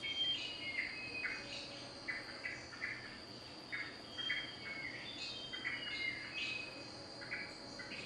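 Forest soundscape: a steady, high-pitched insect drone with many short bird whistles and chirps over it, several notes a second, some falling slightly in pitch.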